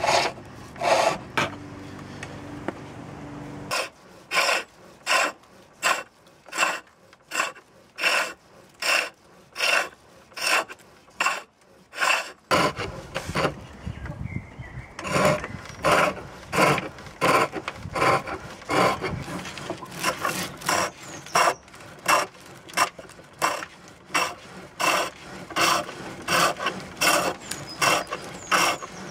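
Ash blank being turned on a foot-powered pole lathe: a turning chisel shaving the wood in short rasping strokes, about two a second. Each cut comes as the treadle spins the work toward the tool, with a pause on the return stroke.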